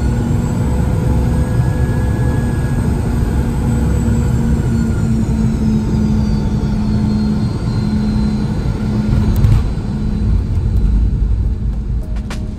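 Cabin noise of a Boeing 717-200 with its rear-mounted Rolls-Royce BR715 engines on landing: a steady rumble and a high engine whine falling in pitch as thrust comes back. Then a thump about nine and a half seconds in as the wheels touch down, with a heavier rumble of the wheels rolling on the runway after it.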